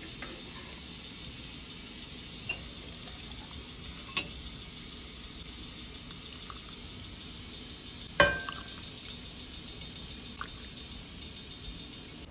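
Soup being ladled from a stainless steel pot into a ceramic mug: pouring and splashing over a steady low hiss, with a few small clinks and one loud metal clink of the ladle a little after halfway that rings briefly.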